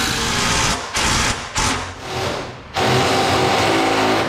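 Cordless power tool running in a few short bursts, then one longer steady run near the end.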